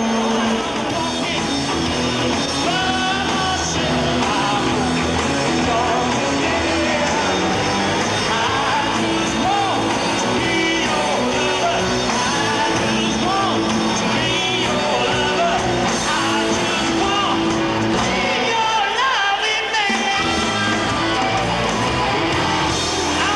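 A live rock band playing, with a male lead singer singing into a handheld microphone over drums and electric guitar. The bass briefly drops away about nineteen seconds in, then the full band returns.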